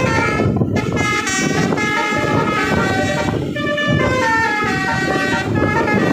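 Bus telolet musical air horn playing a melody, its notes stepping quickly up and down, over the low noise of the running vehicle.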